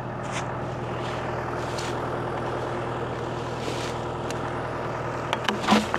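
An engine idling steadily with an even low hum, with a few light knocks near the end.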